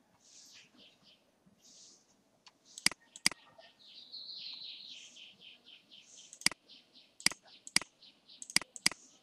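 A computer mouse clicking sharply about seven times, in two groups, as images are picked in a captcha grid. Behind it a bird chirps in fast runs of short, high notes.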